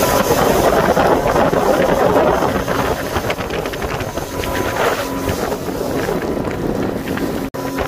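Wind buffeting the microphone over the steady drone of a motorboat running at speed, with water rushing in its wake. The sound drops out for an instant near the end.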